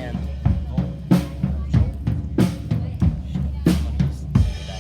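Drum kit played during a band's sound check: kick and snare beating about three times a second over a low steady tone, stopping just before the end.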